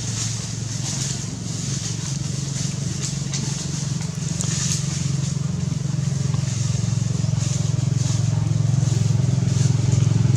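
A small engine running steadily with a low hum, slowly growing louder.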